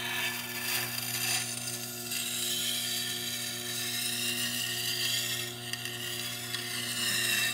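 Chef's knife, clamped in a jig, being ground on the turning water stone of a Tormek T8 wet grinder: a rough, scraping hiss of steel on stone that swells and eases as the blade is worked, over the steady hum of the grinder's motor.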